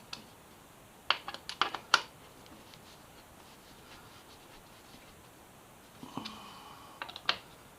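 Sharp metallic clicks and clinks of hand tools working a bolt into a motorcycle rear-set bracket: a quick cluster about a second in, then a short ringing clink and a few more clicks near the end.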